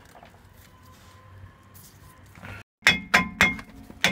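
Hammer blows on a cast-iron Vauxhall Vivaro front brake disc at the hub, each strike ringing, several in quick succession in the last second or so. The disc is being knocked loose from the hub it has rusted onto. Before that there is only light handling noise.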